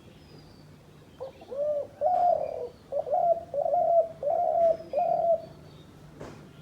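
A dove cooing: one phrase of several low coos from just over a second in until about five and a half seconds in. A single sharp click comes near the end.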